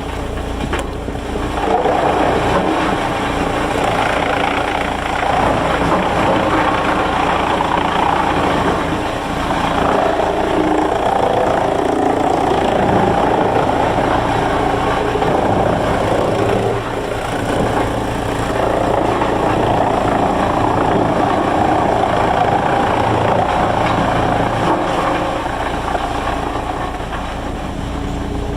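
Sawmill machinery running steadily, its loudness swelling and easing every few seconds.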